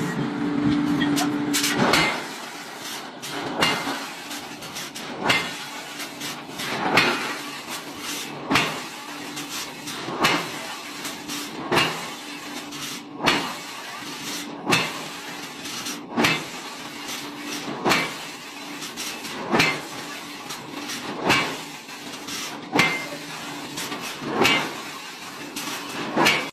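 Heavy forging machinery: a regular knock about every second and a half over steady mechanical noise, after a steady hum in the first two seconds.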